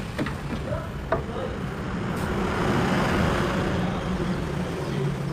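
A motor vehicle's engine running steadily, with a swell of engine and road noise in the middle as if a vehicle passes close by, and a single sharp click about a second in.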